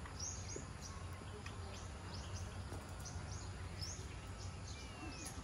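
Small birds chirping: short, high, rising chirps, two or three a second, over a steady low rumble.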